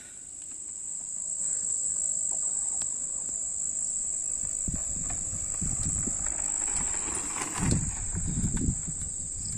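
Steady high-pitched insect chirring, with the low rumble of a mountain bike rolling over a dirt trail growing louder in the second half.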